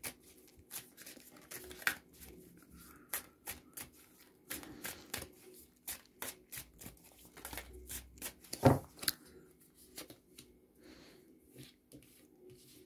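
Lenormand cards being shuffled and laid out on a table: a run of quick soft flicks and taps, with one louder knock about nine seconds in.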